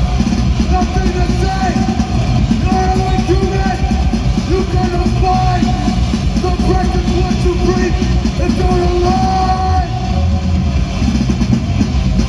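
Loud live band playing heavy, distorted rock, with short held notes that bend at their ends recurring over a dense low-end wall of sound.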